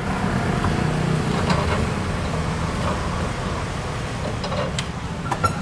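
Steady road traffic noise with a low rumble, with a few light knocks of a knife on a wooden cutting board.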